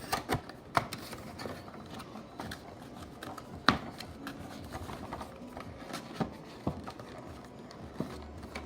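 Trading-card box and foil packs being handled: scattered crinkles and sharp clicks of wrapper and cardboard, with one louder click about a third of the way in.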